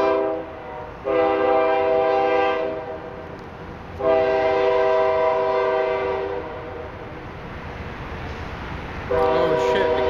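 Train horn sounding in long blasts of several notes at once: one ends just after the start, another runs from about a second in to near three seconds, a third from about four to six seconds, and a fourth begins about nine seconds in.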